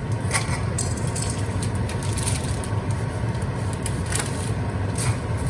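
Stovetop cooking: a sauce simmering in a pan as it reduces, with scattered crackles and scrapes over a steady low hum.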